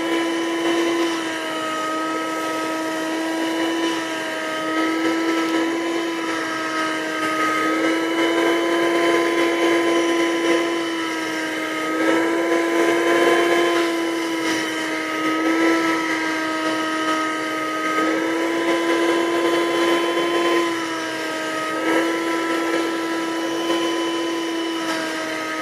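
Portable 12-volt car wet/dry vacuum running with a steady motor whine, its pitch wavering slightly now and then as it sucks up bits of trash.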